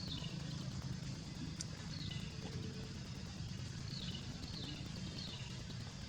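Outdoor background with a steady low rumble, like a distant engine or traffic. Short high chirps that fall in pitch repeat over it in small groups.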